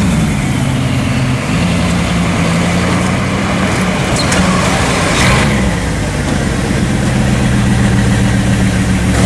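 Bugatti supercar engine running at low revs, a steady low drone whose pitch rises briefly about five seconds in.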